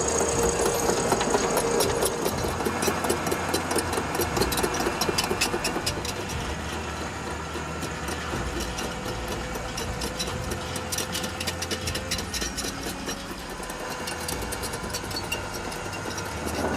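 A machine engine running steadily with a fast, even clatter.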